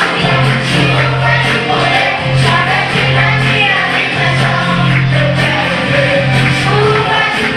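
A group singing a gospel praise song with instrumental accompaniment and a steady, sustained bass line.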